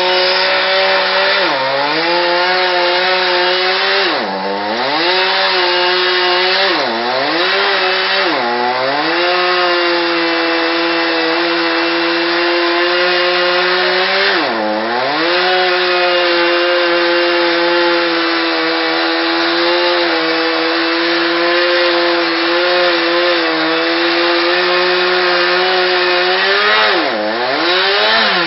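Chainsaw running at high revs while cutting into a tree. Its engine pitch drops sharply and climbs back about six times, with long steady stretches at full speed between.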